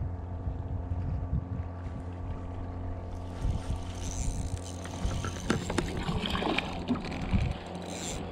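Bow-mounted electric trolling motor humming steadily. Scattered clicks and rattles of fishing gear join it from about three seconds in, while a fish is fought in.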